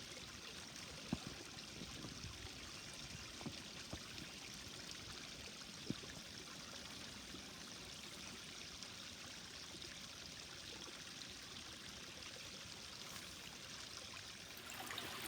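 Small patio-pond waterfall, water running steadily and splashing into the pond, with a few brief ticks.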